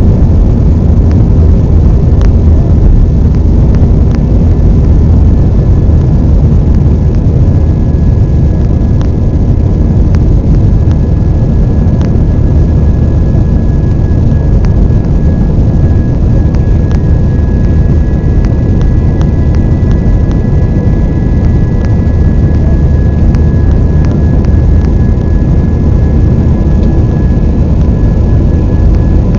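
Airbus A320 jet engines at high thrust during takeoff, heard from inside the cabin: a loud, steady low rumble with thin steady whining tones above it and scattered faint clicks.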